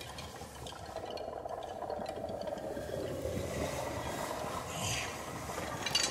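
Quiet passage of experimental percussion: a soft, sustained, slowly wavering sound with scattered faint clicks, ending in a sharp drum stroke.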